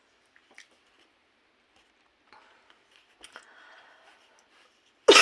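Playing cards being handled and turned up on a table: faint clicks and soft rustling. A loud cough comes right at the end.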